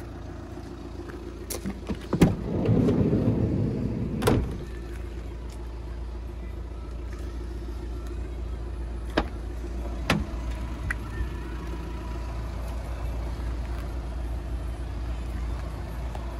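Sliding side door of a VW T6 Transporter Kombi van. The latch clunks about two seconds in, the door rumbles along its runner for about two seconds, and it knocks as it stops fully open, over a steady low hum. A couple of lighter knocks follow later.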